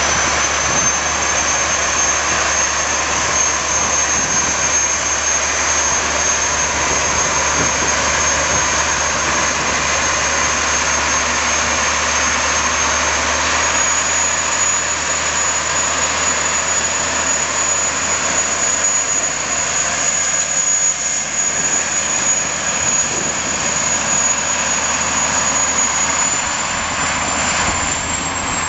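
E.M. Baldwin diesel cane-train locomotive running under load as it pulls a rake of loaded cane bins. The engine noise is loud and steady, with a high whine that steps up in pitch about halfway through and again near the end.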